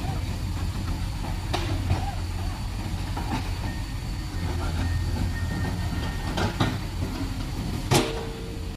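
Heavy diesel engines running at a steady low hum, with several sharp knocks scattered through it.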